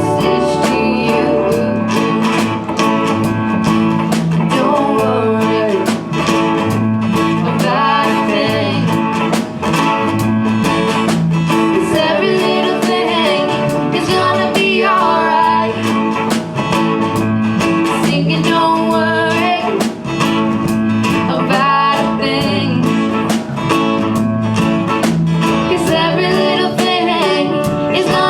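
A voice singing a melody over guitar accompaniment.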